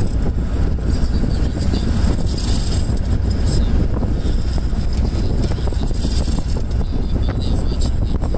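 Steady low rumble of a car driving on a paved road, heard from inside the vehicle: engine, tyre and wind noise.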